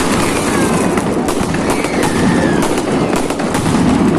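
Fireworks display going off continuously: a dense run of cracks and bangs, with faint gliding whistles among them.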